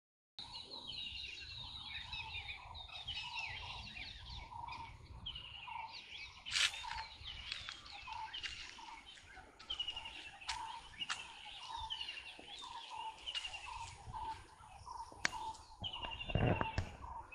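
Several birds calling together: quick descending runs of high chirps and a steady string of lower repeated notes, over a low background rumble. A brief knock or thump comes near the end.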